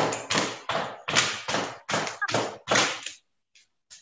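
A person hopping in place, miming jumping rope: a steady run of about nine thumps and swishes, roughly three a second, that stops shortly before the end.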